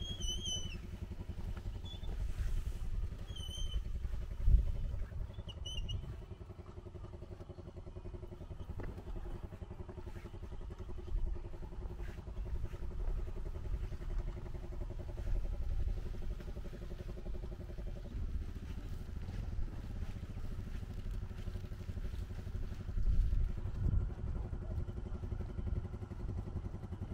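Motorcycle engine running steadily under a low rumble, with a few short high chirps in the first six seconds and one sharp knock about four seconds in.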